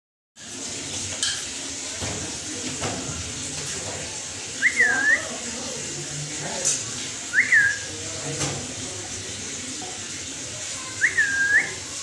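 Three short, clear whistles, each a quick upward sweep that dips and rises again, spaced a few seconds apart over a steady background hiss.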